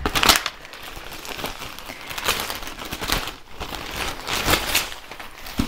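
Clear plastic packaging bag crinkling and rustling as it is pulled open by hand, in an uneven run of crackly rustles, loudest just after the start and again about four and a half seconds in.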